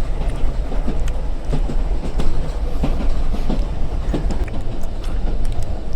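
Foley train sound: a steady low rumble with irregular clattering knocks, like railway wagon wheels running over rail joints.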